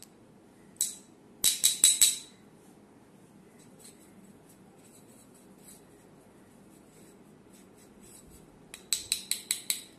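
Quick bursts of light taps on a metal spinning-reel spool, five or six rapid strokes in each with a faint metallic ring, shortly after the start and again near the end, knocking out grit and salt during cleaning; faint brushing between.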